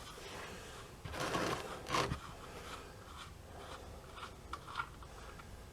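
Faint scraping and a few clicks of hand tools working at the oil drain of an air-cooled VW engine, with a short rasping scrape about a second in and a sharper click about two seconds in.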